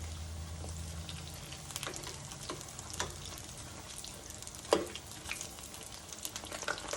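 Buttermilk-battered cauliflower deep-frying in hot oil in a skillet: a steady sizzle with scattered pops and crackles. A sharp click about five seconds in, and a low hum that fades out in the first second and a half.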